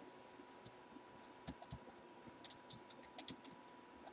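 Near silence with faint, irregular clicking of a computer keyboard, about a dozen scattered clicks, over a faint steady hum.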